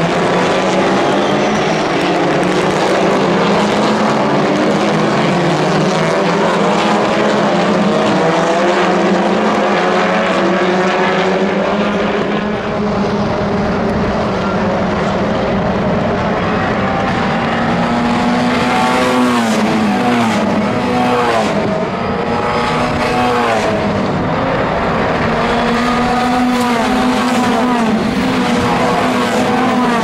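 Several WTCR touring cars, 2.0-litre turbocharged four-cylinder TCR racers, racing past at full throttle with their engine notes overlapping. Their pitch climbs and drops again and again as they change gear.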